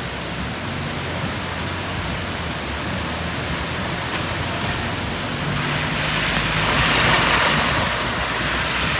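Steady rushing noise of heavy monsoon rain and rain-swollen runoff water, growing louder about six seconds in and easing again near the end.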